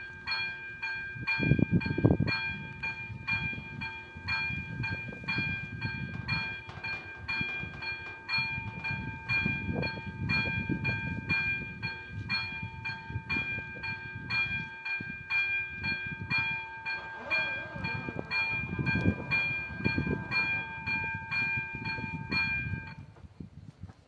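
Electronic level-crossing warning bell ringing in a fast, even beat while the crossing is active. It stops shortly before the end, as the barrier arms finish lowering. Low rumbling swells come and go underneath.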